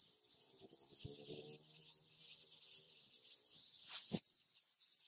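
Aerosol spray can hissing steadily as black paint is sprayed onto die-cast model car parts.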